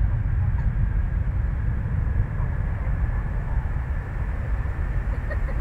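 Boeing 737-800's twin CFM56-7B turbofans at takeoff thrust: a steady, loud, deep rumble with a faint thin whine above it.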